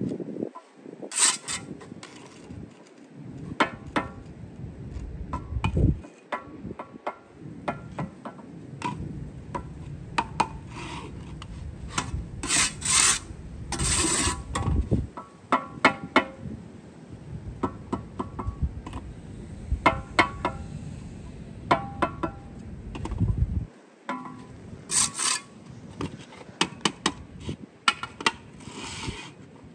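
Steel mason's trowel scraping and tapping on concrete blocks and mortar: many short clinks with a brief metallic ring, and several longer scrapes, over a steady low rumble.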